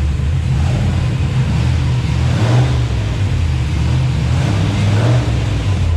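Turbocharged car engine doing a full pull with the car up on a hoist and the wheels turning free, surging twice, about two and a half and five seconds in. The engine is running a bit rich.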